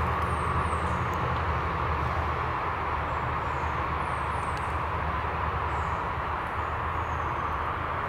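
Steady rushing outdoor background noise with a low hum under it, and a few faint, short, high bird chirps, each falling in pitch, scattered through it.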